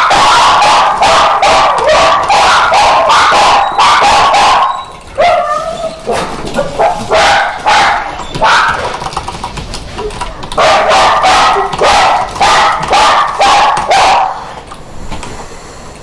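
Dog barking and yipping in long, rapid runs of high-pitched calls with whining slides between them. It breaks off briefly about five seconds in, starts up again, and tapers off near the end.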